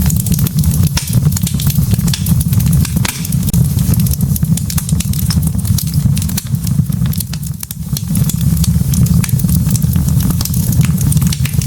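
Log fire burning in a fireplace: a steady low rumble of flame with frequent sharp crackles and pops from the burning logs.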